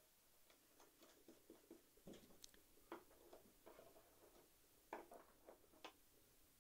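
Faint, scattered light clicks and small scrapes of a small metal toggle switch being pushed into its hole in a wooden panel and its hex mounting nut turned by hand.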